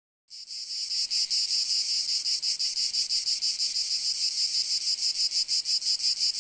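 Insects chirring: a high-pitched buzz in a fast, even pulse that fades up shortly after the start and holds steady.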